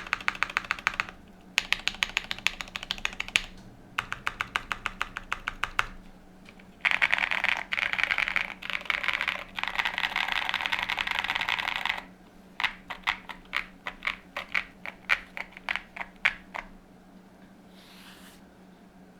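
Mechanical keyboard typing on a gasket-mounted QK100 with an FR4 plate, lubed Epsilon switches and JC Studio Greek Blue keycaps: short bursts of quick keystrokes, then a dense, rapid run of key presses through the middle, then slower single keystrokes that stop a few seconds before the end.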